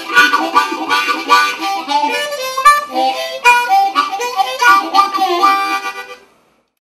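Solo blues harmonica cupped in both hands, playing a fast riff of short notes and chords that stops a little after six seconds in.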